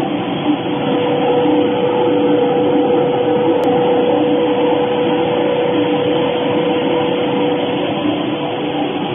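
Twin-screw extruder pelletizing line running: a steady machine drone with a constant hum over dense noise, as plastic pellets pour across a vibrating perforated sieve. A brief knock about half a second in.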